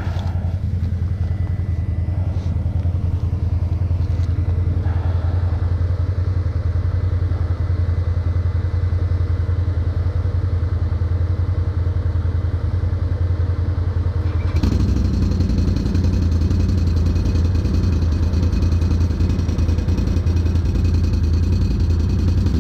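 Can-Am 6x6 ATV engine running steadily during a winch recovery of the stuck machine. About two-thirds of the way through, the sound steps up louder with a brighter whine added on top.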